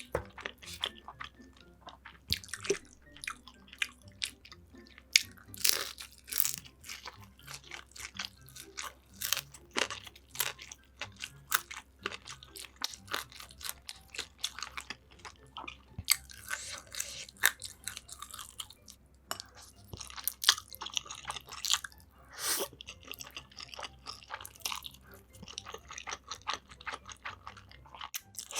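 Close-miked eating: a person chewing and biting food, with many irregular crisp crunches and crackles.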